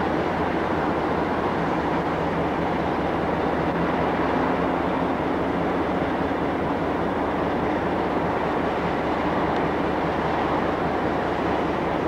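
Steady, even rumble of distant rail traffic across a large city rail yard, with no distinct exhaust beats or whistle.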